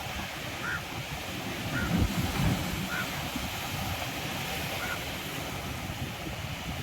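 Sea waves washing on a beach, with wind gusting on the microphone, strongest about two seconds in. A short faint chirp-like call repeats every second or two above the surf.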